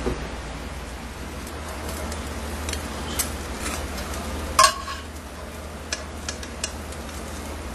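Metal saucepan of simmering sauce being handled: a few light clicks and one sharp metallic clink with a short ring about halfway through, over a steady hiss.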